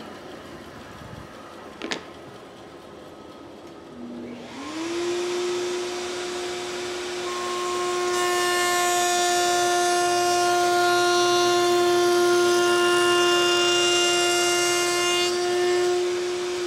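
Table-mounted router with a flush-trim bit switching on about four seconds in, its motor whine climbing quickly to a steady high pitch. From about eight seconds the bit is cutting, trimming the wood flush to its pattern with a louder rasping over the whine, until the cut ends shortly before the end and the router runs freely.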